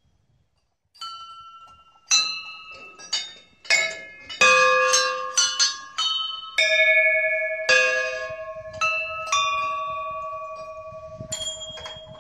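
Hanging brass temple bells (ghanti) rung one after another, about fifteen clangs at several different pitches, each ringing on and overlapping the next. One lower bell keeps ringing from a little past the middle, and the strikes thin out near the end.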